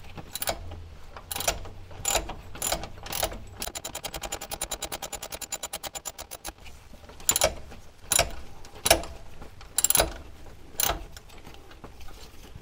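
Ratchet wrench working a bolt loose. Single sharp metal clicks and knocks come first, then a fast, even run of ratchet ticks for about three seconds in the middle, then more separate metal knocks.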